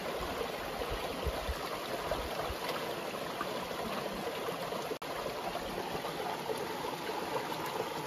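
River water flowing, a steady rushing sound.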